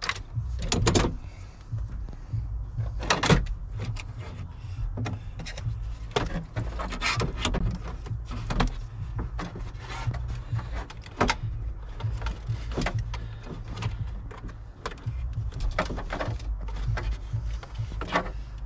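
Irregular plastic clicks, knocks and rattles of a Ford F-250's instrument cluster and dash trim being worked loose and lifted out by hand, over a steady low rumble.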